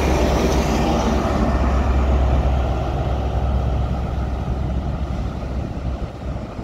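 Diesel engine of a GWR Class 43 HST power car, an MTU unit, working under power as the train pulls away, a deep steady rumble mixed with wheel and rail noise. A high whine dies away in the first second or two, and the rumble drops and fades near the end as the train moves off.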